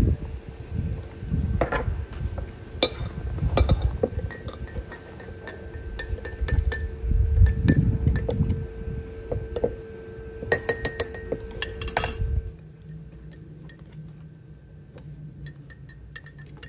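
Dishes and utensils being handled: irregular clinks and knocks of glass and metal over low rumbling, with a quick run of sharp ringing clinks about eleven seconds in. After that it goes quieter, leaving a low steady hum.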